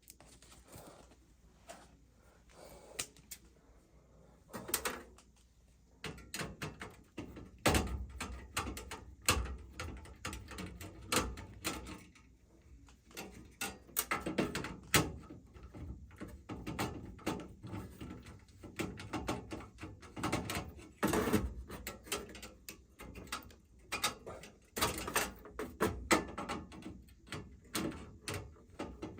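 Hands and tools working on parts inside a gas furnace during an igniter swap: irregular clicks, knocks and rustling of metal and plastic being handled, sparse at first and busier from about six seconds in.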